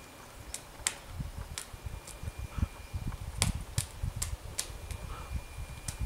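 Pileated woodpecker pecking at a log as it feeds: about ten sharp, irregular taps, several in a quick run around the middle, over a low rumble.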